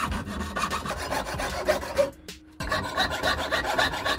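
Jeweler's piercing saw cutting through sheet metal in rapid back-and-forth strokes, with a short pause about two seconds in.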